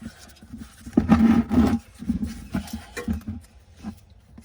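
Handling noise of work at the car's drain: irregular scraping and knocks, loudest for about a second starting a second in.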